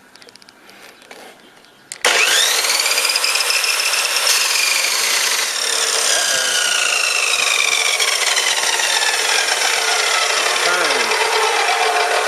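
Chop saw motor starting about two seconds in and spinning up to a high whine, then cutting into metal, its pitch sinking slowly and steadily as the blade works through the piece.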